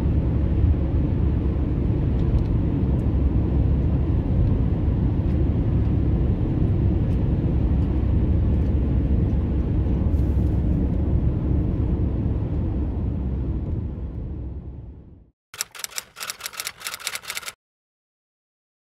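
Steady low rumble of a car travelling along a motorway, fading out near the end. It is followed by about two seconds of rapid typewriter-like key clicks.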